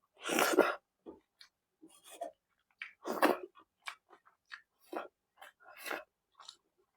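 Close-miked mouth sounds of eating fish curry, egg bhurji and pav: many short wet chewing and lip-smacking noises, with two louder noisy bursts about half a second in and at about three seconds.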